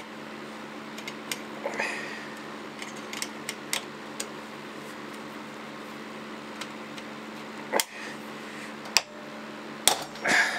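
Locking pliers (Mole grips) clamped on a silver-soldered steel strip in a bench vise, clicking and clinking on the metal as they are levered, over a steady low hum. Near the end comes a louder metallic clatter as the test piece slips out of the vise jaws.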